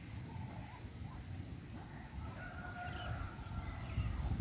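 Faint distant bird calls, one of them a drawn-out call in the second half, over a steady low rumble.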